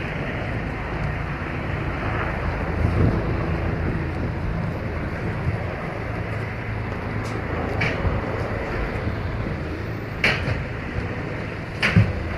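Strong wind buffeting the phone's microphone, a steady rushing noise, with a few short sharp pops in the second half.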